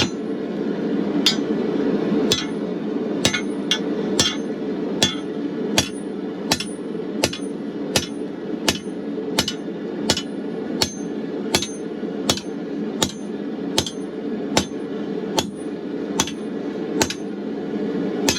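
Steady hammer blows on hot steel at an anvil, a bit over one a second, each ringing briefly. Under them a gas forge burner runs with a steady noise.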